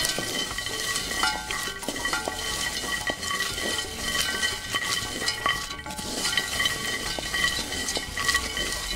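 Cocoa beans being stirred as they dry-roast in a pot: a dense, continuous rattle of many small clicks and scrapes as the beans are turned against the pot.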